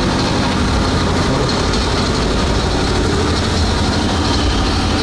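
Many motorcycle engines running together in a steady low rumble, with no single rev standing out.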